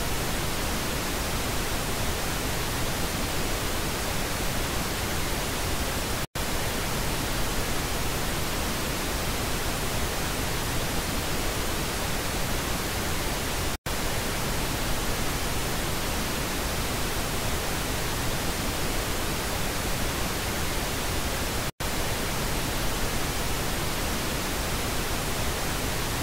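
Pink noise test signal for checking left and right speaker channels: a steady, even hiss across the whole range, broken by three brief dropouts about eight seconds apart.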